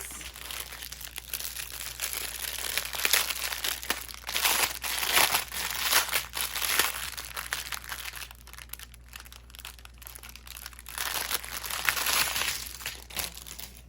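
Crinkling and rustling of plastic packaging being handled: small bags of diamond painting drills and the kit's wrapping, in an irregular run of small crackles.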